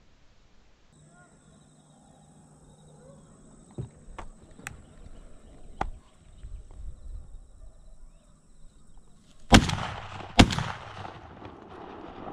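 A shotgun fired twice close by in quick succession, less than a second apart, each a sharp loud blast. A few fainter sharp cracks come a few seconds earlier.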